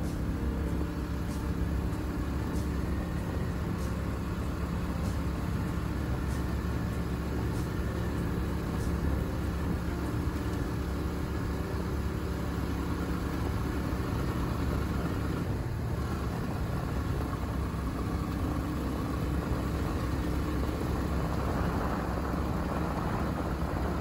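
A road vehicle's engine running steadily at an even pitch, with a continuous low rumble.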